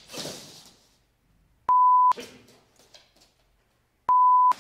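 Broadcast test tone over colour bars: a steady pure beep near 1 kHz sounding twice, each about half a second long and about two and a half seconds apart. A fading hiss follows each beep.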